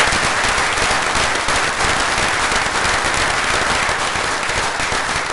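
Audience applauding, many hands clapping at once, gradually easing off toward the end.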